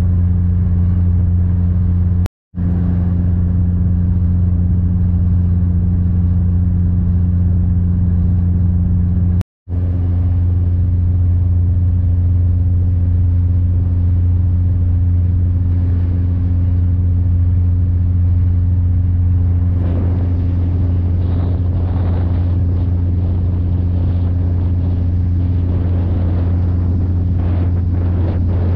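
Deep, steady drone of a boat's diesel engine running close by, broken by two short drops to silence about two and a half and nine and a half seconds in. From about twenty seconds in, a hissing rush joins it.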